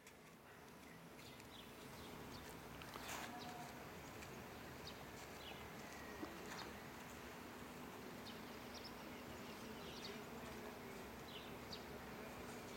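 Faint outdoor ambience: scattered short, high chirps over a steady low hum and hiss, fading in over the first couple of seconds.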